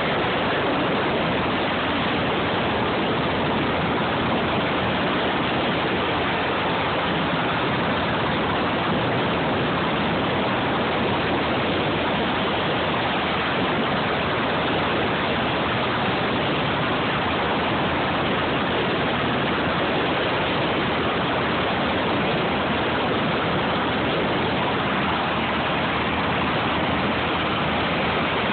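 Helicopter running on the ground while powering up for takeoff, heard as a loud, steady rushing noise that holds the same level throughout.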